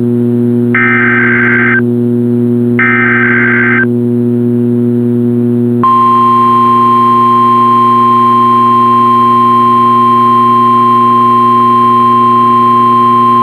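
NOAA Weather Radio Required Weekly Test alert signal: two of the three SAME digital header bursts, each a raspy warble about a second long with a second's gap between them. About two seconds after the last burst, the steady 1050 Hz warning alarm tone starts and holds. A steady low hum runs underneath throughout.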